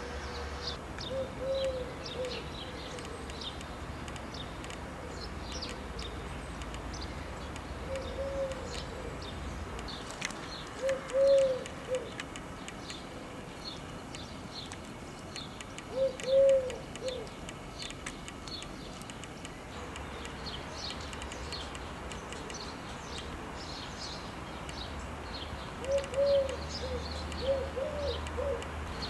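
Doves cooing in the garden, short phrases of low coos every few seconds, the loudest about eleven and sixteen seconds in and a longer run near the end, over steady high chirping of small birds.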